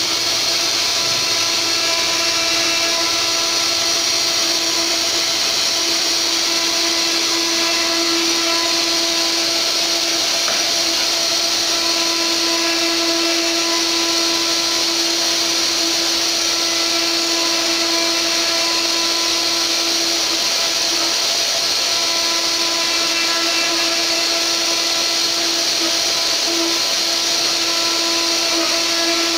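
Mini CNC router spindle running steadily, its 4 mm D4 R1 carving bit milling a relief into a wooden board. It makes a steady whine of several even tones over a high hiss of cutting.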